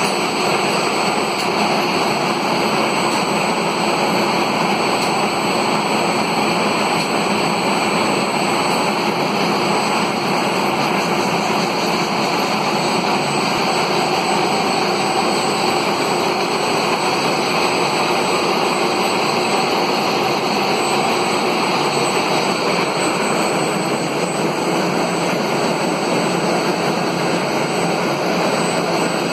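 Gear hobbing machine running: a steady, loud machine noise of motors and gearing with no clear rhythm, starting abruptly.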